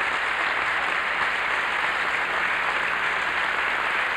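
A large audience applauding, steady dense clapping without a break.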